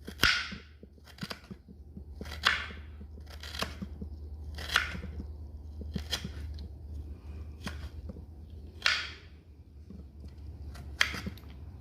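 Knife cutting roasted ginger into small pieces: about ten sharp cuts, roughly one a second.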